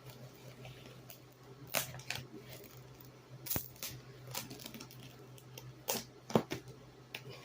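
A few sharp, scattered clicks and knocks, like handling or movement noise, over a low steady hum.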